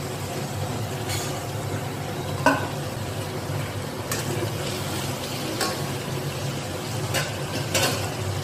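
Sliced onion, carrot and capsicum sizzling as they fry in a stainless steel kadai, with a steady low hum underneath. Half a dozen short scraping clicks of a stirring utensil against the pan are scattered through it.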